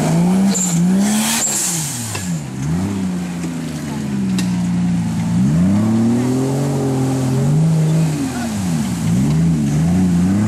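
Competition off-road 4x4's engine revving hard under load as it churns through mud, its pitch climbing and falling again and again, with a long pull about halfway through and a run of quick throttle blips near the end.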